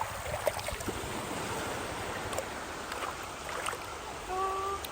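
Shallow sea water washing and trickling over sand at the shoreline, with a few small ticks and splashes. Near the end a short steady pitched note sounds for about half a second.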